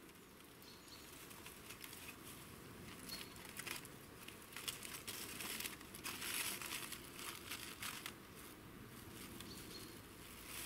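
Aluminium foil and a thin plastic bag crinkling as a wrapped snack is unwrapped by hand, in faint, irregular bursts.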